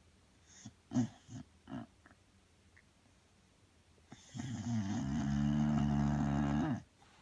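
Sleeping bulldog snoring: three or four short snuffling breaths about a second in, then one long, loud snore lasting about two and a half seconds.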